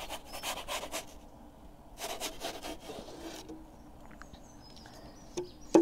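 Wooden pizza peel scraping across the stone baking floor of a gas pizza oven as the pizza is slid off and the peel drawn back out, in two rasping strokes, followed by a short knock near the end.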